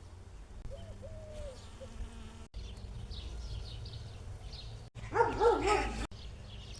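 A dog barking briefly, a few quick barks run together over about a second near the end, with a fainter short call about a second in. Small birds chirp throughout.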